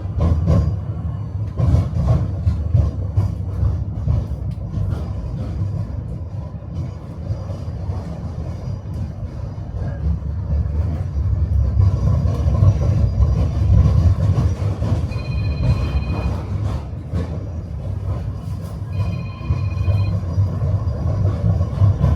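Electric tram running along its rails, heard from on board: a steady low rumble of wheels and running gear, with sharp clacks of the wheels over rail joints in the first few seconds. Later come two brief high-pitched tones.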